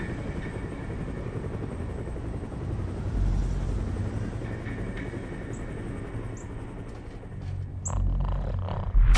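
Cartoon sound effects: a steady low vehicle rumble. A few short high squeaks come in the second half, and a sudden loud hit lands just before the end.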